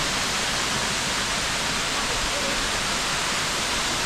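Steady rushing of a waterfall, an even unbroken wash of water noise.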